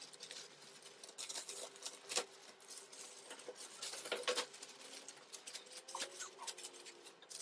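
Clear plastic packaging rustling and crinkling as a wire basket is worked out of its bag: faint, irregular crackles, with a couple of sharper ones about two and four seconds in.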